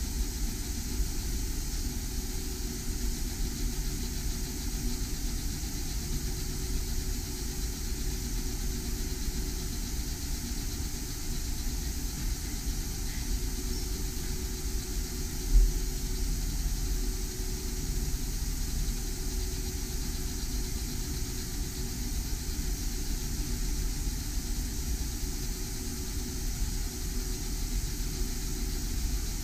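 Laser engraver running while it engraves a glass on a rotary attachment: a steady mechanical hum with low tones that come and go as the head moves. A single short low thump about halfway through.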